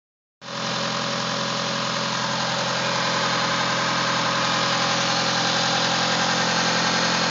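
Mitsubishi 4G63T turbocharged inline-four idling steadily, starting about half a second in. The owner suspects the engine has a rod knock from worn rod bearings.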